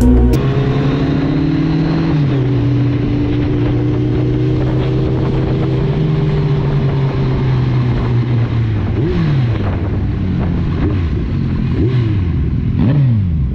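Kawasaki Z1000R's inline-four engine running at low road speed, heard from the bike itself. Its pitch eases down about two seconds in, then several short throttle blips rise and fall near the end.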